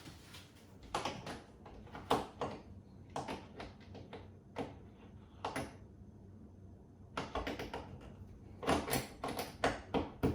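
Irregular sharp clicks and knocks of small rail-fitting hardware being handled and pushed into place, scattered at first and then coming in a quicker run near the end.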